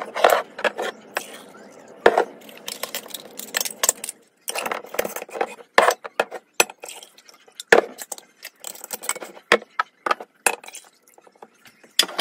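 Glass pint mason jars and their metal lids clinking and knocking as the lids are put on and the filled jars are set down on a countertop: a string of irregular sharp clinks and taps.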